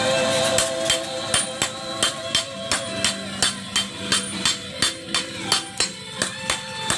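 Hammer blows ringing on metal at a blacksmith's anvil, about three strikes a second in an even rhythm, with music playing behind.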